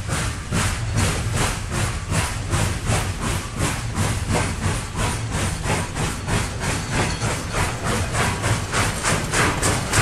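Steam locomotive chuffing at a steady pace, hissing exhaust beats about four a second over a low rumble.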